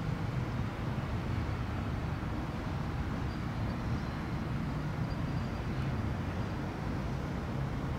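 Airbus A319 jet airliner on final approach, its engines a steady distant low rumble with a faint high whine coming in partway through.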